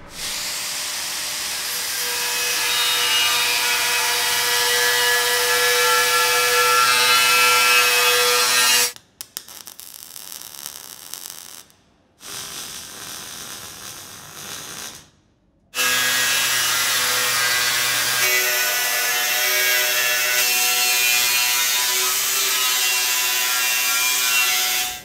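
Angle grinder with a thin Norton Quantum3 cutting disc slicing through the steel wall of an air tank: a loud, steady high whine with many tones. It stops about nine seconds in, giving way to two shorter, quieter stretches of MIG welding crackle as a hinge is tacked on. The grinder then cuts again for the last nine seconds.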